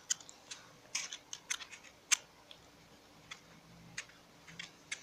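Light clicks and taps of small plastic parts being handled, about a dozen of them, irregularly spaced.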